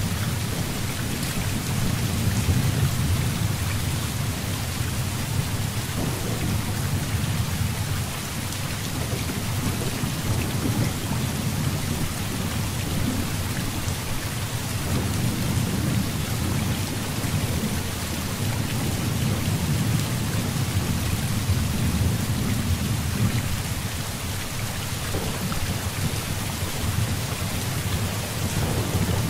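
Heavy rain falling steadily, with low thunder rumbling underneath that swells and fades several times.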